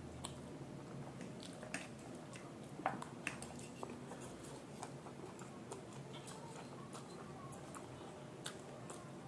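Close-up eating sounds of a chowmein and momo meal: chewing, with scattered sharp mouth clicks and smacks, a few louder ones about three seconds in.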